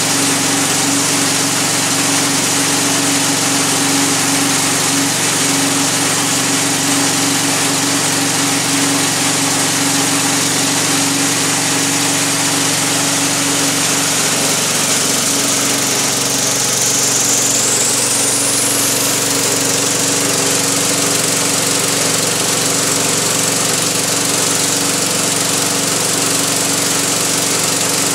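1985 Wood-Mizer LT-30 portable band sawmill running steadily under load, its engine driving the band blade through a log. A steady engine drone runs throughout, and a high whine rises briefly about two-thirds of the way through.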